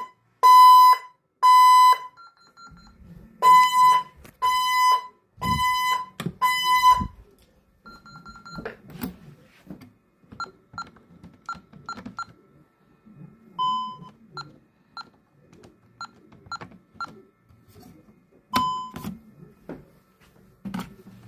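Honeywell alarm keypad sounding a loud, evenly pulsed electronic beep in two runs that stop about seven seconds in. After that come short key-press beeps as a code is keyed in on the keypad, with the odd longer beep.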